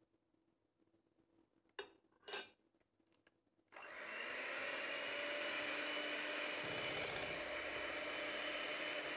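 Two sharp clicks, then an electric hand mixer switches on about four seconds in and runs steadily, its beaters working cocoa powder into cake batter in a glass bowl.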